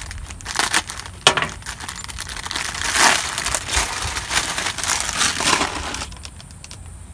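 Clear plastic packaging bag crinkling and rustling as a folded t-shirt is worked out of it, with one sharp knock about a second in. The rustling stops about six seconds in.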